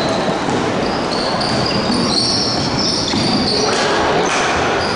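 Basketball shoes squeaking on a hardwood court during play, several short high squeaks from about two seconds in, over the steady murmur of a crowd in the gym.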